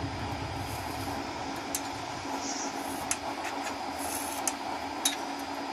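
Used-oil burner stove running with a steady rushing hum as it warms up. A low throbbing dies away in the first second or so. A few light metallic clicks come as a metal rod is poked against the burner.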